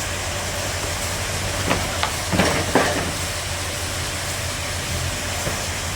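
Sawmill bandsaw machine running with a steady noise and a low hum, with a few sharp knocks or clatters about two to three seconds in.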